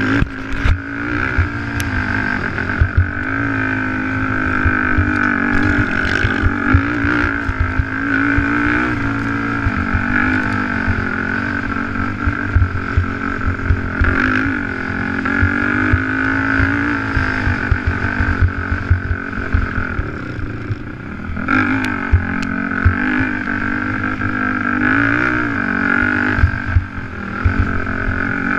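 Sport quad's engine running hard at high revs under the rider, its pitch wavering with the throttle, dipping about twenty seconds in and then climbing again. Short knocks from the rough dirt track come through all along.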